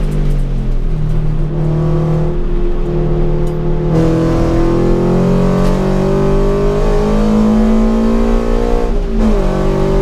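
Toyota GT86's flat-four engine heard from inside the cabin under hard track driving: revs fall at the start, then climb, with a sharp drop at a gear change about nine seconds in before rising again.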